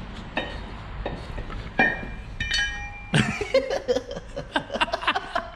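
Metal engine parts clinking, with a brief metallic ring a couple of seconds in, then a man laughing for the last couple of seconds.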